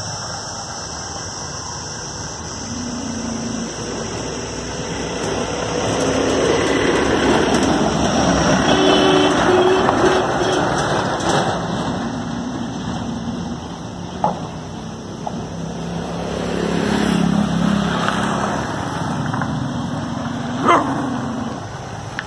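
A dog growling in low stretches, with a couple of short, sharp barks, one about two-thirds of the way through and one near the end.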